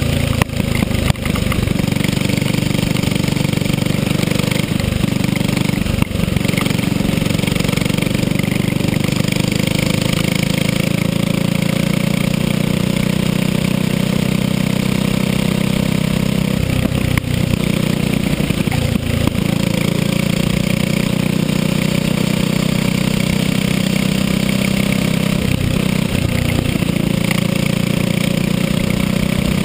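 Go-kart engine running hard on track, heard from on board the kart, a steady engine drone that dips briefly a few times as the throttle is lifted.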